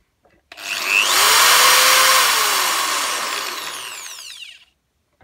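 Mac Allister 600 W corded hammer drill run unloaded at full speed: the motor spins up about half a second in with a loud rushing whir, most of it air blowing from the cooling vents in the sides of the case, then winds down to a stop near the end.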